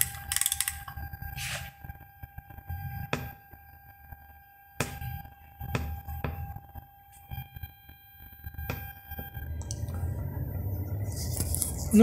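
Pioneer DEH-6350SD car stereo's speakers giving a steady high whine over a low hum, with nothing playing and the volume turned up. This background noise comes from the added Bluetooth receiver board's 5-volt supply and is to be cured by adding a DC-DC converter. A few sharp clicks sound in the middle, and the whine fades out near the end.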